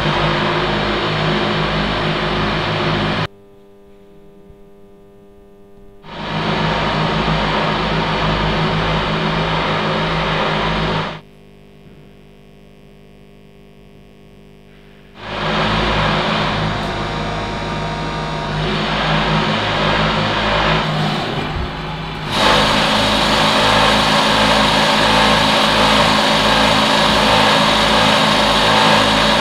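Motor-driven vibrating mirrors of a kinetic art installation buzzing, echoing in a tiled tunnel: a loud mechanical buzz over a steady low hum that stops abruptly about 3 s in and again about 11 s in, each time starting again a few seconds later, with only a faint hum in the gaps. The buzz grows louder for the last third.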